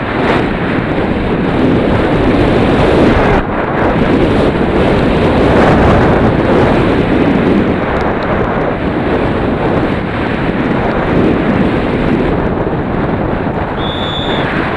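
Loud, steady rushing of wind buffeting a camera microphone at speed on a downhill mountain-bike run. A short high beep sounds near the end.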